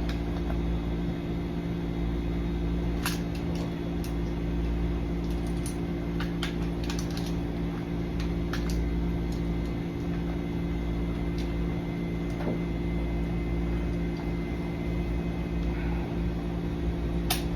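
Steady mechanical hum with a low rumble, with scattered light clicks and taps from handling lock hardware and tools.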